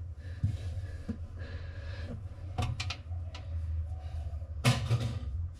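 Light clicks and knocks of a coin being worked loose by hand from a gap in a washing machine drum, with a louder clatter near the end, over a steady low hum.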